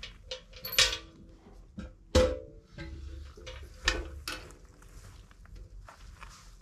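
Metal wall-tent wood stove knocked and shaken to dump its ashes: a few sharp metallic bangs, the loudest about two seconds in, some leaving a short ringing tone.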